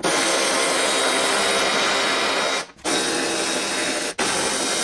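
Power tool running steadily in three runs with short pauses between them, spinning off the top nuts of a 2008 Toyota Highlander's rear strut.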